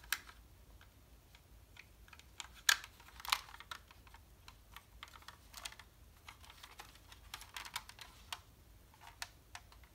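Irregular small plastic clicks and taps as parts of an Academy Phoenix plastic model kit are handled and pressed into place on its underside, the two loudest clicks close together about three seconds in.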